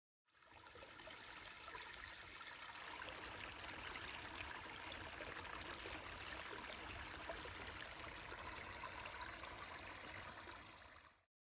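Shallow stream trickling and splashing over a sunken wooden board, a steady rush of water that fades in at the start and stops near the end.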